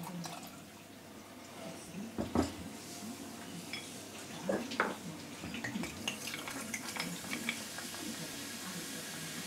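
Gin poured over ice in a glass tumbler, with a knock just after two seconds and clinks of ice and glass around five seconds in. Tonic water then pours into the glass from about six seconds, fizzing with a steady hiss.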